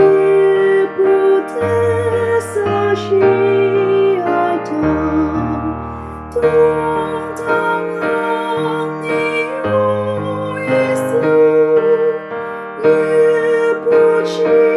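Slow piano music: sustained chords and bass notes under a held melody line with vibrato.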